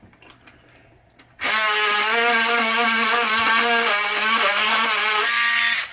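Dremel rotary tool switched on and running at high speed, a steady whine with a grinding hiss as it cleans the contact of a pinball light socket. It starts about a second and a half in, dips slightly in pitch under load, and stops just before the end.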